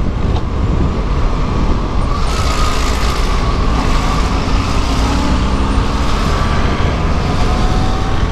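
Yamaha FZ6 motorcycle's inline-four engine running as it rides through traffic, under a loud, steady rush of wind over the microphone.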